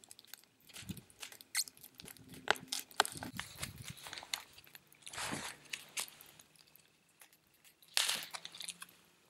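Knife blade cutting through thin, stiff birch bark, a run of small clicks and crunches, then the cut bark piece crackling as it is handled and bent, with louder crackles about five and eight seconds in.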